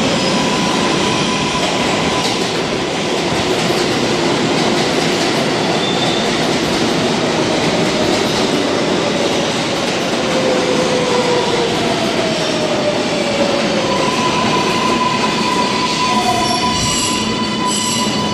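An R142A subway train pulling into an underground station: a loud, steady rumble of wheels on rail with high squealing from the wheels and brakes, gliding in pitch as the train slows. More squeal tones come in near the end as it brakes to a stop.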